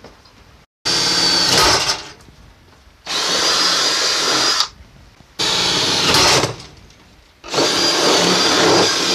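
Power drill boring holes, run in four bursts of one to two seconds each with short pauses between.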